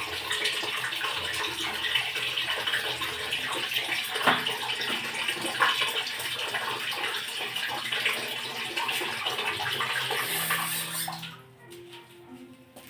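Water running steadily from a tap, which stops abruptly about eleven seconds in.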